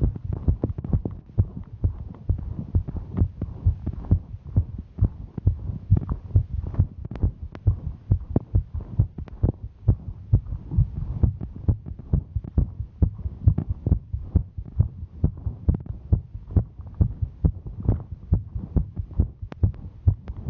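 A woman's heartbeat recorded close on the chest: quick, regular low thumps, a heart beating fast from the exertion of hiking.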